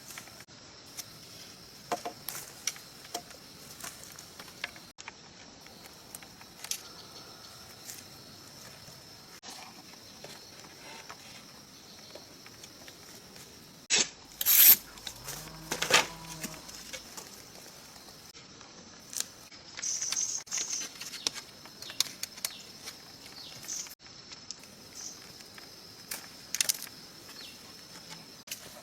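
Scattered knocks, clatters and rustling of hands-on outdoor work, with a loud cluster of knocks about halfway through, over a steady high insect drone.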